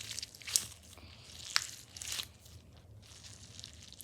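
Crunchy dumpling squishy being squeezed, giving a few short, sharp crunches, the loudest about half a second and a second and a half in.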